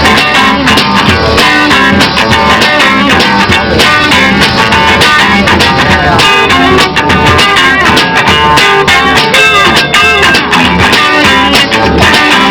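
Guitar-led band music played without vocals: strummed guitars over a bass line with a steady beat.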